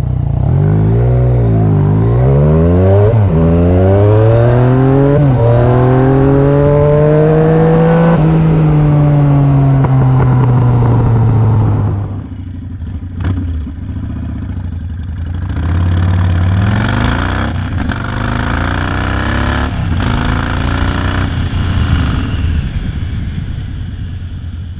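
Yamaha MT-09 three-cylinder motorcycle engine accelerating hard. Its pitch climbs and drops back at three upshifts, climbs once more, then eases off. About halfway through, a quieter Yamaha XV1700 Road Star Warrior V-twin takes over and revs up as it accelerates.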